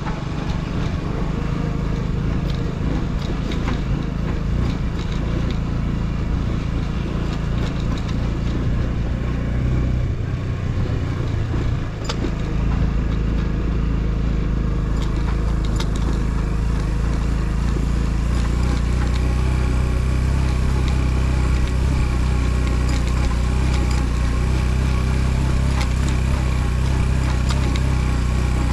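Motorcycle engine running steadily while the bike is ridden. The engine note dips briefly about ten to twelve seconds in, then settles into a steady, slightly deeper run.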